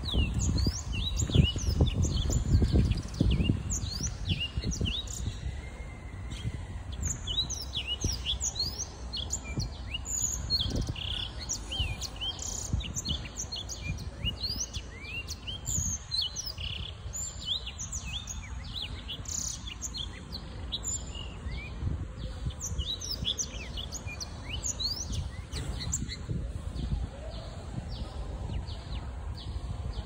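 A six-month-old black-throated canary (Crithagra atrogularis) singing a long, fast, twittering song of quick high notes, most of them sweeping downward. A low rumble runs underneath and is strongest in the first few seconds.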